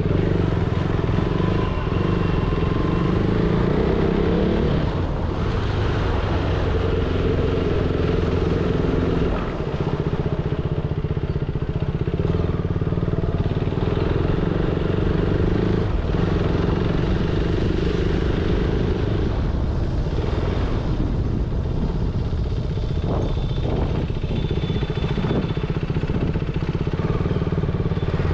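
A motor vehicle's engine running steadily, with a brief dip in level about nine seconds in.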